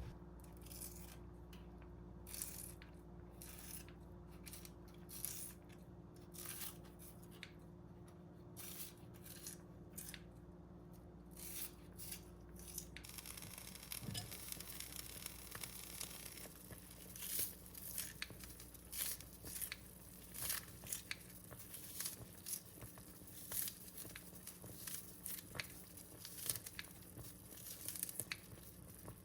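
Irregular short crinkling and tearing sounds from hands at work in a kitchen, with a light scrape here and there.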